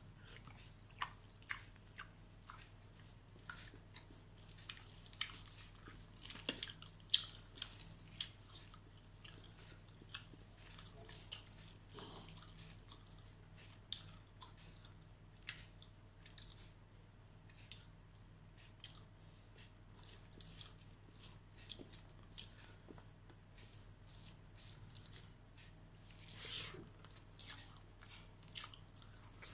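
Close-up eating sounds: wet chewing and mouth smacks, with fingers squishing rice and curry on a steel plate, in many short clicks throughout. A longer, louder smacking bite comes near the end.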